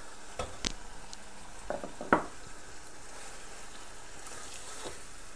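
Chicken masala sizzling in a non-stick frying pan, its liquid almost cooked off, as fried karela (bitter gourd) is tipped in and stirred with a metal spatula. A few sharp knocks of utensils on the pan come through the sizzle, the loudest about two seconds in.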